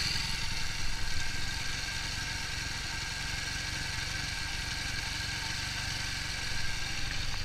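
TVS Apache RTR 200's single-cylinder engine idling steadily, its carburettor fuel screw just opened a quarter turn for a richer mixture. The idle holds an even speed, almost perfect by the tuner's ear after the erratic hunting at leaner settings.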